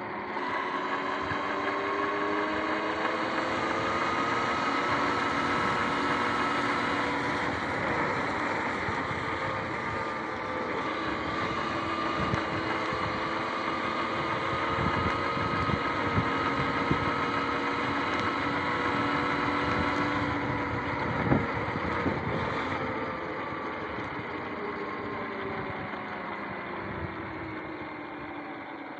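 Sur-Ron X electric dirt bike's motor and chain drive whining at speed, with tyres hissing on wet pavement. The whine rises in pitch over the first few seconds, holds, then falls and grows quieter in the last third as the bike slows, with a single knock from a bump partway through.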